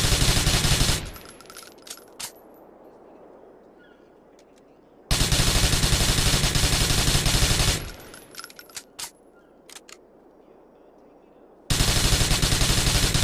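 MP-10 submachine gun firing long fully automatic bursts: one ends about a second in, another runs from about five to eight seconds in, and a third starts near the end. Small metallic clinks follow each burst.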